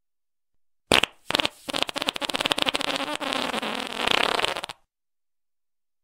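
Fart sound played as a ringtone: a short sharp burst, then a second brief one, then a long, rapidly fluttering fart of about three seconds that cuts off abruptly.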